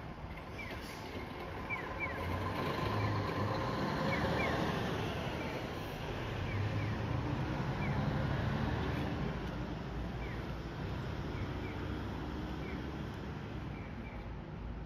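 Town street ambience: steady traffic noise that swells twice as vehicles pass, with short high chirps from small birds dotted throughout.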